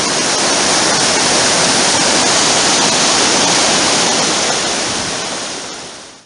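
Loud, steady rush of fast-flowing water from a mountain river, fading out near the end.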